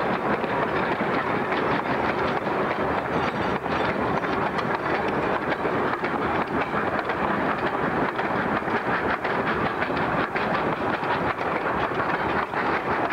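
Coal hopper wagons rolling past close by, their wheels clattering over the rail joints in a steady, dense run of clicks.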